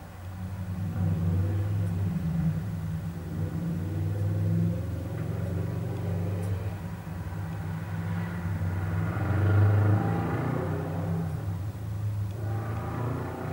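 Street traffic: a steady low engine rumble, with vehicles passing, one swelling to its loudest about ten seconds in and another near the end.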